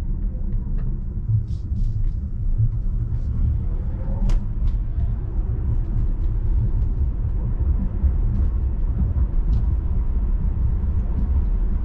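Steady low tyre and road rumble heard inside the cabin of an electric Tesla Model 3 as it drives along a street.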